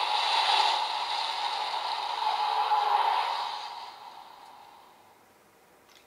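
Toy Kamen Rider transformation belt playing a transformation sound effect through its small speaker: a steady rushing noise that fades away over the last couple of seconds.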